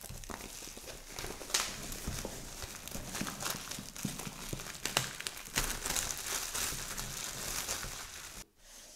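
Clear plastic shrink-wrap being pulled off a cardboard box and crumpled: continuous crinkling and crackling with sharp crackles, stopping about half a second before the end.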